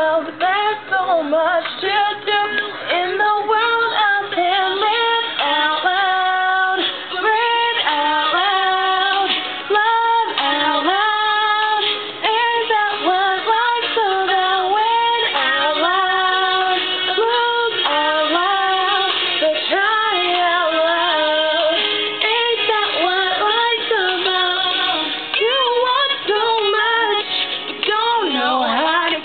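A girl singing a song, in held notes that bend and slide between phrases.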